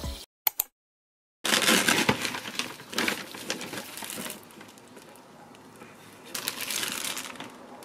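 Grocery packaging rustling and crinkling as groceries are unpacked from a delivery bag, including ears of corn in a mesh net. It starts about a second and a half in after a short gap and comes in two bouts, the second near the end.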